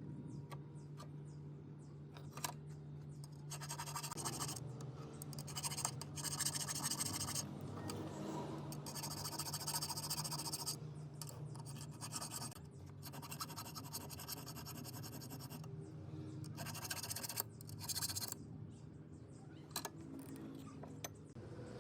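Scratchy rubbing in several spells of a few seconds each, over a low steady hum.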